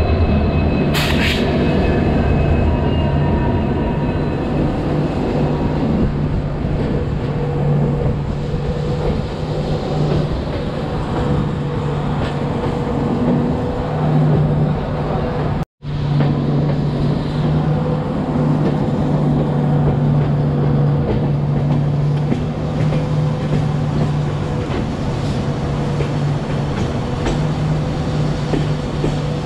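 Passenger express train running, heard from aboard: a continuous rumble of wheels on rail with a steady low hum, and a faint high squeal from the wheels in the first few seconds. The sound drops out for an instant about halfway through.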